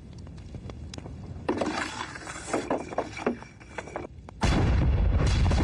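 A burst of clattering and scraping as an artillery piece is worked, then near the end a wheeled field gun fires with one loud blast that rolls on as a low rumble.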